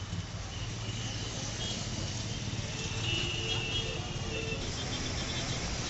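Road traffic heard from a moving vehicle: a steady low engine hum and rumble, with a few faint high beeps in the background.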